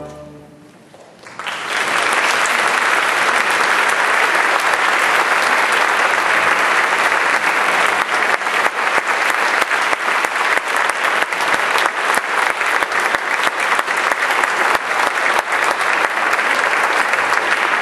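The string orchestra's final chord dies away, and about a second in an audience breaks into loud, steady applause that carries on throughout.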